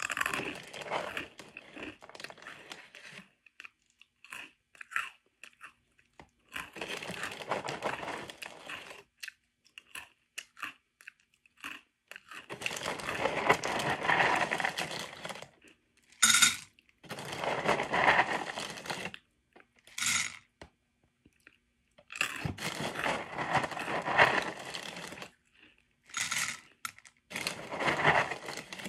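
A hand rummaging in the plastic liner of a cereal box, the bag crinkling and the dry French Toast Crunch pieces rustling, in irregular bursts of one to three seconds with short pauses between.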